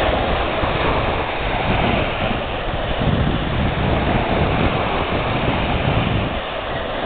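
Small sea waves breaking and washing on a sandy shore, a steady surf noise, with wind buffeting the microphone.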